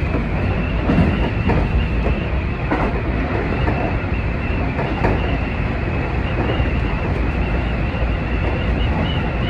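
Seibu 20000 series electric train running between stations, heard from the front car: a steady rumble of wheels on rail with a steady high tone, and a few sharp rail-joint clacks in the first half.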